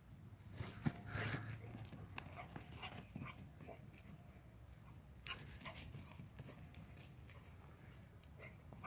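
A dog running through dry grass and scrub: scattered rustling and crackling footfalls, loudest about a second in and again around five seconds in.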